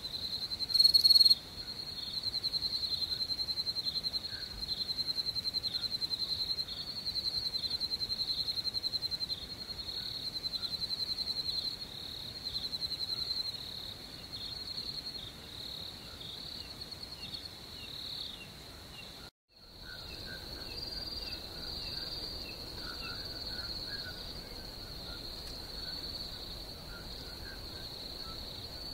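Crickets chirping in a steady high-pitched chorus, the rapid pulses swelling in trains of a second or two. A brief, louder, higher-pitched burst comes about a second in. The sound cuts out for a split second about two-thirds through, then goes on more evenly.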